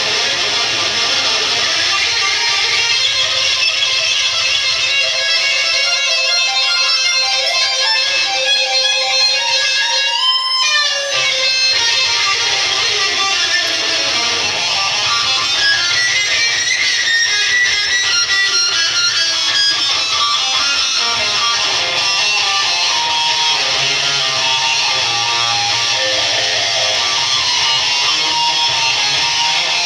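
Electric guitar playing a fast instrumental rock piece, with a quick downward slide in pitch about ten seconds in.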